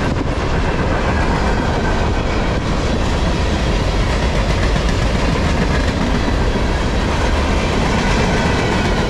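Freight cars of a long mixed freight train rolling past: a steady, loud rumble and clatter of steel wheels on the rails, with no locomotive nearby.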